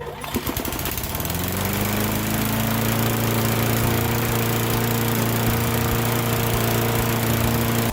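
Small walk-behind lawn mower engine starting up, its pitch rising over a second or so as it comes up to speed, then running steadily.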